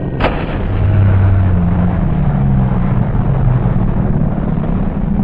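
A foam model aircraft slamming into grass with one sharp crash about a quarter of a second in, followed by a steady low rumble.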